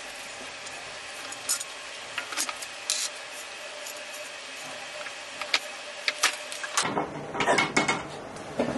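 A hand tool working on a caster wheel's axle bolt, making irregular sharp metal clicks and clinks as the wheel is fitted to the dolly handle. A busier cluster of knocks comes about seven seconds in.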